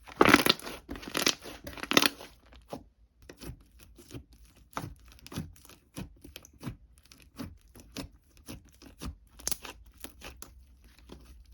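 Paper or packaging torn in three quick rips in the first two seconds, then a run of light clicks and taps as things are handled.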